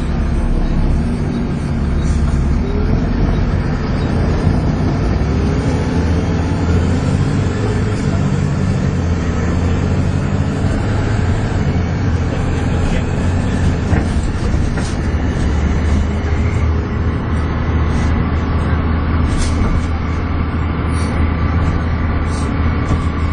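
Volvo B7TL double-decker bus's six-cylinder diesel engine working hard, heard from inside the bus: a steady low drone with a high vacuum-cleaner-like whine ("hoovering") over it, plus a few brief rattles from the bodywork.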